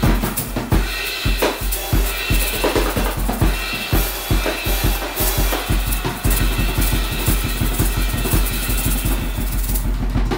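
Drum-driven music with a fast, steady bass-drum beat and snare hits; the kick drum quickens to a rapid run about six seconds in.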